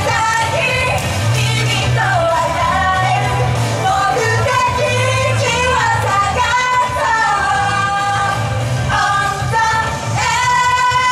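Female idol group singing a J-pop song live into microphones over an amplified backing track with a pulsing bass beat.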